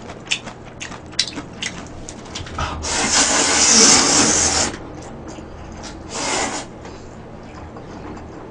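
A man slurping jjamppong noodles from the bowl: one long loud slurp about three seconds in lasting nearly two seconds, then a shorter slurp about six seconds in, with small clicks between.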